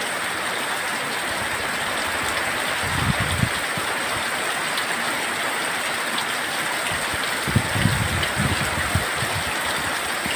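Heavy tropical rain pouring down in a steady hiss, with low gusts of strong wind buffeting the microphone about three seconds in and again from about seven and a half seconds in.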